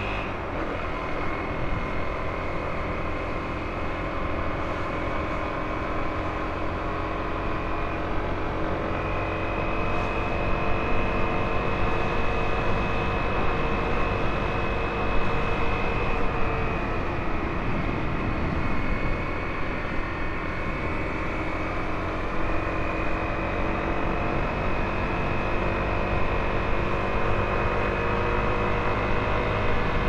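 Honda CRF250L single-cylinder motorcycle engine, fitted with a PowerBox exhaust header, running under way, its pitch rising and falling with throttle and gear changes. Wind rushes over the microphone.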